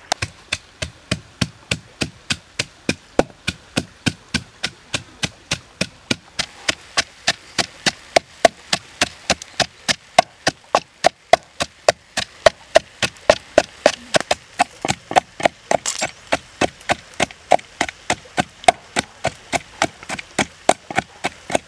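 Wooden pestle pounding chilies and salt in a deep wooden mortar: a steady beat of sharp knocks, about three strikes a second.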